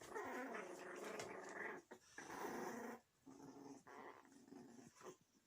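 Puppies growling as they play-fight: one long growl of nearly two seconds, then several shorter growls.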